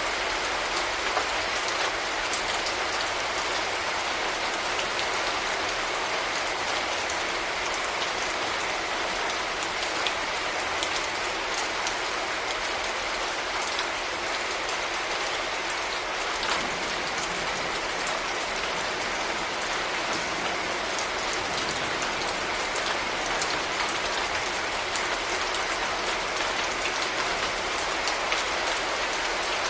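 Steady rain falling in a city, a constant wash of noise with many fine ticks of individual drops hitting surfaces.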